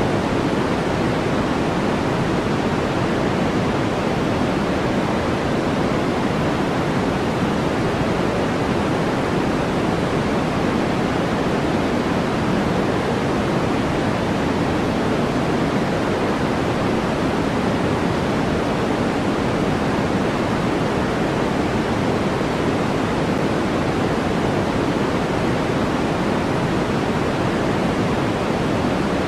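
Steady synthetic noise from a white noise sleep track: an even, unbroken hiss with no rise or fall. It is fuller in the low and middle range than in the highs, closer to pink noise than to flat white noise.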